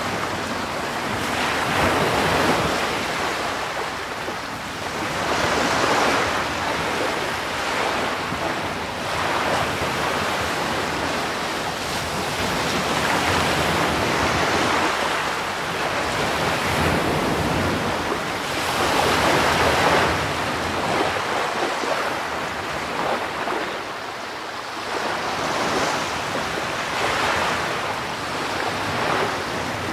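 Ocean surf breaking and washing up a dark pebble beach: a continuous hiss of foam that swells and eases every three to four seconds as each wave comes in.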